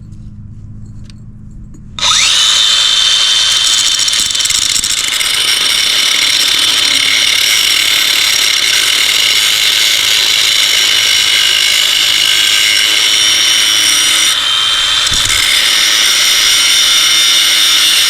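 Cutoff wheel spinning up about two seconds in, then grinding steadily into steel with a loud, high-pitched whine. The whine dips briefly near the end and picks up again.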